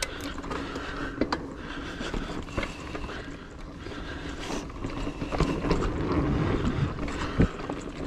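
Hardtail mountain bike (2019 Trek Roscoe 8) rolling over a dirt singletrack: a steady rumble of tyres on dirt and leaves with rattles and clicks from the bike, heard from a chest-mounted camera. A sharp knock near the end.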